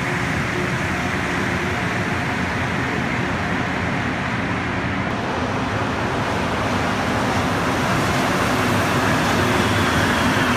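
Rubber-tyred Montreal Metro trains in underground stations: one pulling away, then another running in. The noise is a steady rush that swells in the last few seconds as the arriving train comes alongside the platform.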